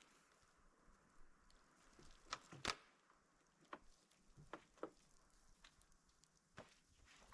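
Faint, scattered clicks and light knocks, a handful of them, the loudest about two and a half seconds in.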